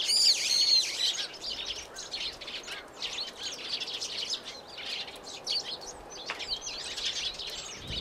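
Wild birds chirping: a dense run of quick, high calls, loudest in the first second.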